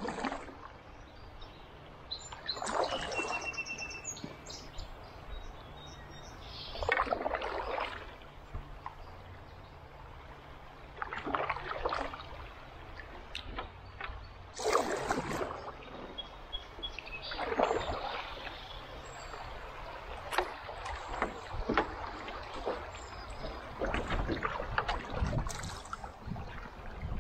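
Canoe paddle strokes in river water: a splash and drip about every three to four seconds. Near the end, rippling current and quicker, busier splashing.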